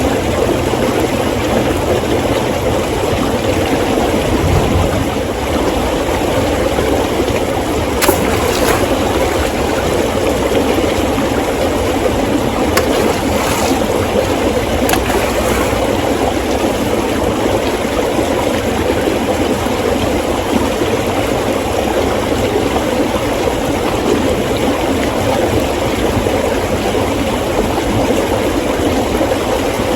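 Steady rushing of a flowing stream, even throughout, with a few faint clicks about a third and halfway through.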